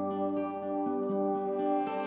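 Background music of sustained, held notes, with a chord change shortly before the end.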